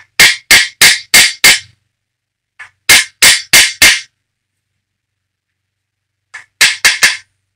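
Screwdriver tapping a thrust main bearing shell down into its saddle in an engine block: three runs of sharp taps, five, then four, then three, a few a second. The shell is a tighter fit than the others because of the thrust flanges on each side.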